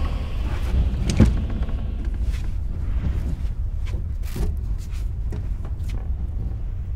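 A steady low rumble with a few scattered knocks and clicks, the loudest knock about a second in.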